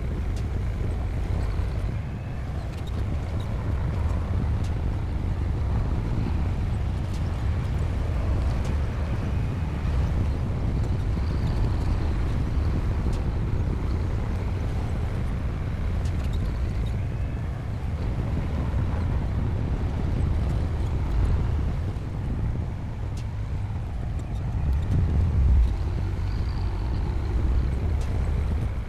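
Bulldozer's diesel engine running steadily under load with a deep low rumble, swelling briefly twice in the second half.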